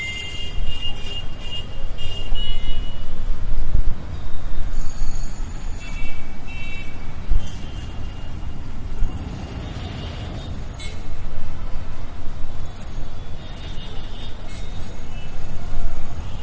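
Busy road traffic: engines and tyres rumbling past, with vehicle horns honking several times, including a long blare at the start.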